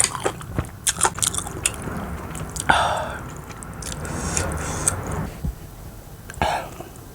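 Close-miked eating: a person chewing and biting food with a rapid run of small wet clicks, then a longer noisy stretch a little under halfway through, and a short burst near the end.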